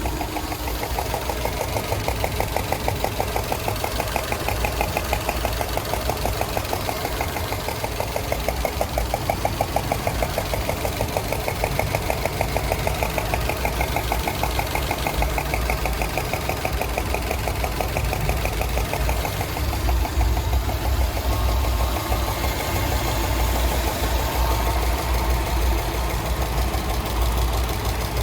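Subaru EJ255 turbocharged flat-four engine idling warm, with a fast, even tapping that runs with the engine's rhythm. The owner calls it knocking, a tap that shows up once the engine is warm.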